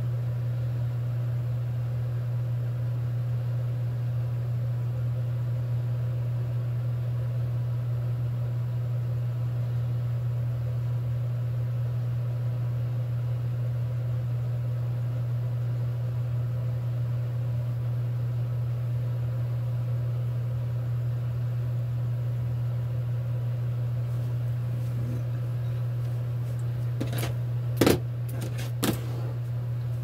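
A steady low mechanical hum, with two or three sharp knocks near the end.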